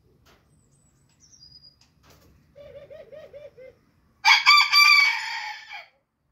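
Booted bantam rooster crowing once: a short, high crow of under two seconds, about four seconds in. Before it comes a run of about seven quick, low clucks.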